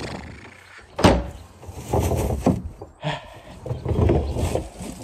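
Wheeled plastic trash cart being pushed along, its wheels and body rumbling and rattling, with a sharp thump about a second in.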